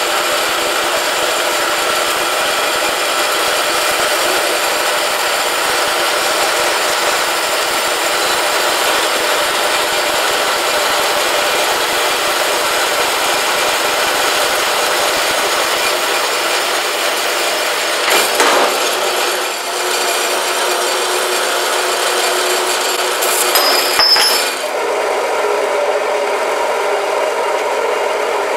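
Horizontal metal-cutting bandsaw sawing through a block of hot-rolled steel, a steady, even noise of blade on metal, with a couple of brief knocks in the second half. Near the end it gives way to a milling machine running.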